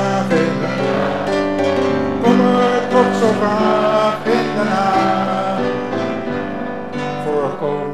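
Grand piano playing an instrumental passage of chords and melody, with the notes changing about every half second; it thins out near the end.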